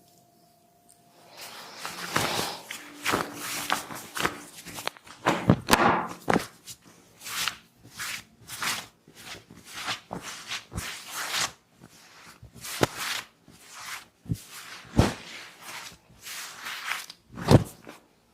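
Hands slapping and striking the body during a barber's massage: a long, uneven series of sharp slaps, about one or two a second, some much louder than others.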